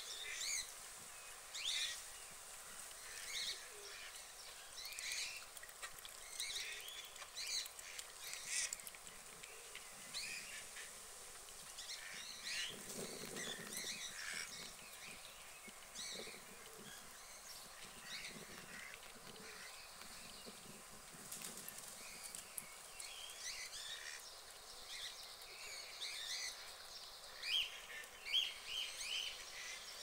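Duck pond ambience: white domestic ducks calling, amid frequent short chirps from small birds, with a few louder calls near the end.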